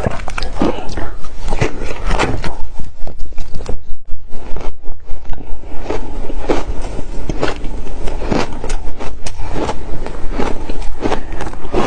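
Ice with passion fruit being bitten and chewed close to the microphone: sharp, crackling crunches, settling into a steady chewing rhythm of about three crunches a second in the middle.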